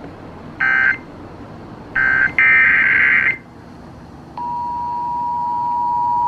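Emergency Alert System SAME data bursts: two short warbling two-tone digital bursts about a second apart, then a longer burst. After a short gap the steady two-tone EAS attention signal comes in and holds, the tone that heralds a new alert message.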